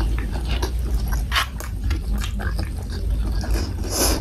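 Close-miked chewing of boneless chicken feet cooked in soy sauce with rice: wet mouth clicks and smacks in quick succession, with a sharper, louder smack near the end.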